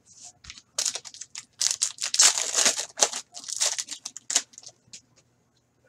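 A trading card pack's foil wrapper being torn open by hand and crinkled, a run of crackling rips that dies away about a second before the end.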